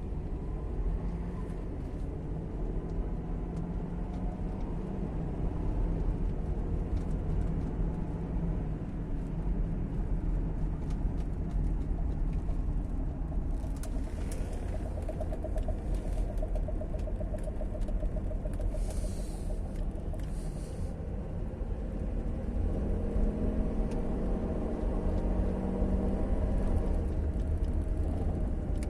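Chevrolet Captiva 3.2 V6 with an automatic gearbox, heard from inside the cabin while driving: a steady low engine and road rumble, with the engine note rising and falling in places.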